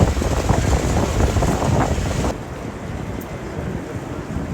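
Strong wind buffeting the microphone in a snowstorm, a loud rushing with heavy low rumble that drops suddenly to a quieter low rumble a little over two seconds in.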